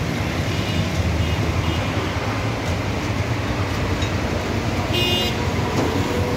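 Steady low rumble of street traffic, with a short car horn toot about five seconds in.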